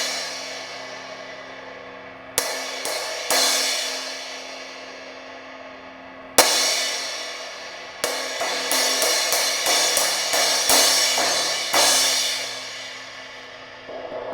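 Zildjian 17-inch K Custom Hybrid crash cymbal, repaired by cutting the crack out of its edge, being struck in a sound test. A few hits early on, a single hard crash about six seconds in that rings and decays, then a quick run of strikes before it rings out near the end.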